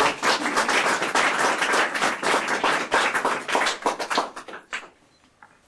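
Audience applauding with many rapid handclaps, dying away about four and a half seconds in.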